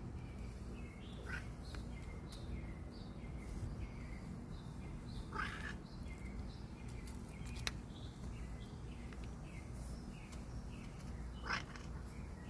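A cat giving short croaking, frog-like chirps three times, spaced a few seconds apart, over a faint steady run of small high chirps.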